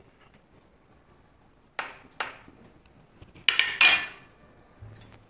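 A metal spoon clinking on a glass and a plate: a few light taps from about two seconds in, then a louder clatter as the spoon is set down on the plate.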